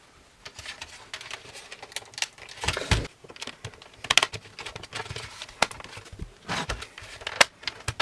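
Plastic router casing being handled and pried apart: irregular clicks, taps and short crackles of plastic parts and snap-fit clips.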